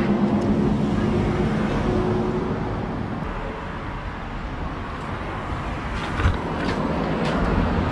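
A car driving along a road: steady road and engine noise with a low rumble.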